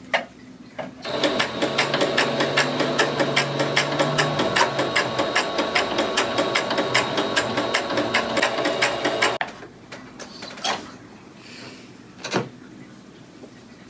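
Electric sewing machine running and stitching, a fast, even rattle of the needle mechanism that starts about a second in and stops about two-thirds of the way through. Two faint single knocks follow near the end.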